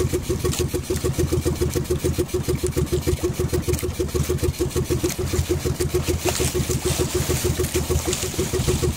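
Outrigger fishing boat's engine running steadily, with a rapid, even putter.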